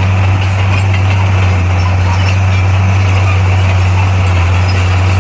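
Heavy diesel engine of a bulldozer running steadily, a deep even drone with no change in engine speed.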